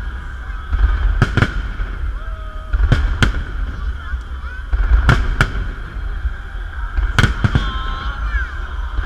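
Festive fireworks salute: aerial shells bursting with sharp bangs, often two in quick succession, about every two seconds.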